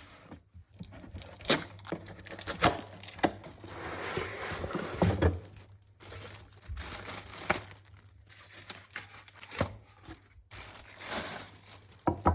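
Packaging being torn open and crinkled while unboxing, with irregular sharp clicks and knocks and a longer stretch of rustling about four to five seconds in.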